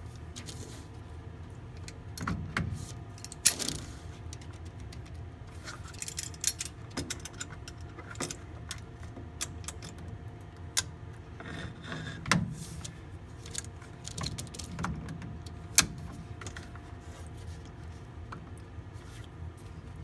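Pliers clinking against a spring band clamp as the drain hose is worked onto the washing machine's drain pump housing. Irregular light metallic clicks with a few sharper knocks, over a low steady hum.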